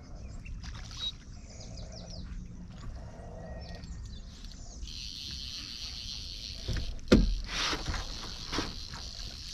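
Knocks on a small fishing boat while a snook is fought on a fly rod: one hard, deep knock about seven seconds in, the loudest sound, then a few lighter ones, over a steady high whir.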